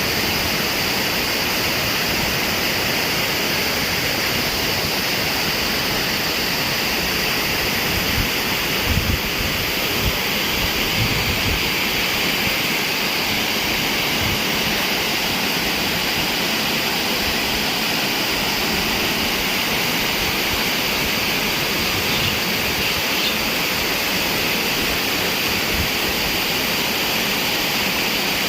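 Small waterfall: water rushing steadily, with a few brief low bumps near the middle.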